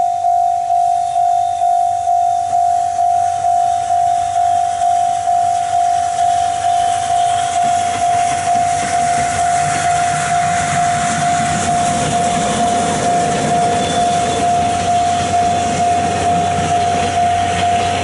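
Railway level-crossing warning bell ringing steadily, about two strikes a second. From about halfway through, the rumble and hiss of the C58 steam locomotive and its coaches passing over the tracks rises beneath it.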